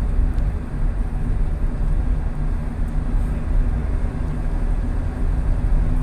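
Steady low rumble of road and engine noise heard from inside a moving car at highway speed, with a tour bus running alongside.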